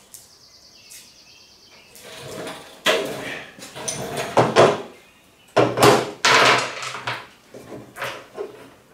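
Clatter and scraping of metal hardware being handled and fitted during assembly, in several separate bursts: bolts, locking nuts and axle brackets.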